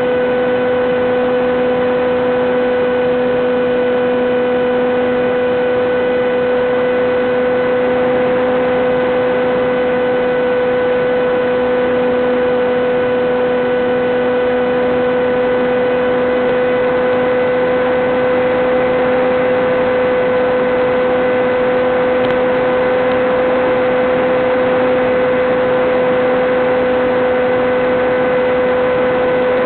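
Electric motor of an FPV model aircraft running at a steady throttle, one unchanging whine over a constant hiss, as carried by the analog 5.8 GHz video link's audio.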